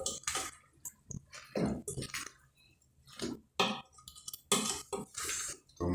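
A spoon stirring moist chopped food in an aluminium pot: irregular scrapes against the metal and wet squishing, with a short lull about halfway through.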